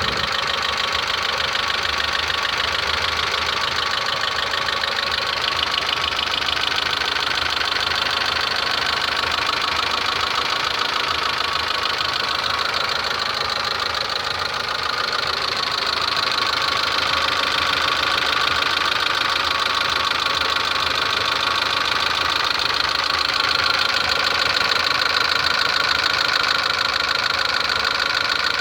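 Daewoo Nexia engine idling steadily with a fast, even tapping of its hydraulic lifters, which knock once the engine is hot.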